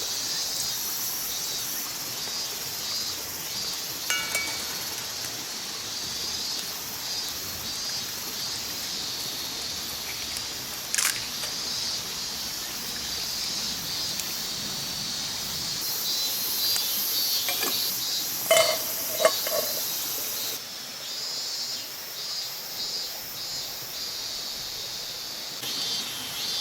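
Food sizzling as it cooks in a pan: a steady high hiss, with a few sharp clinks of a utensil, one about a third of the way in and several more about two-thirds through.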